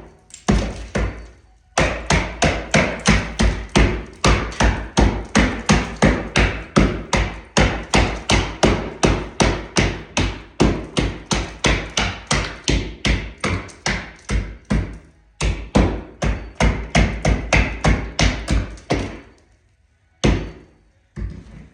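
Hammer blows on a plaster and lath wall, struck rapidly at about three or four a second, with a few brief breaks and a longer pause near the end.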